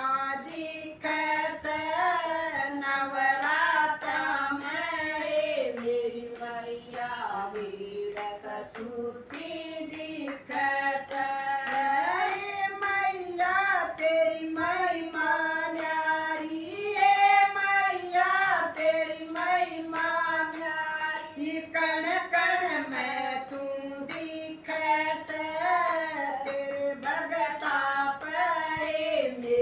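Women singing a devotional bhajan together, with hand-clapping keeping a steady beat.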